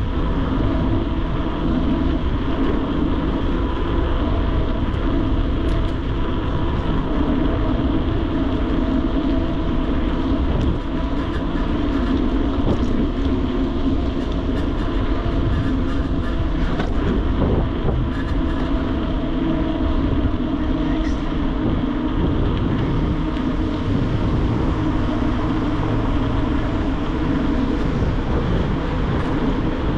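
Steady rolling noise of a mountain bike ridden along the road, heard from the bike-mounted camera: an even drone of tyres and air rushing past.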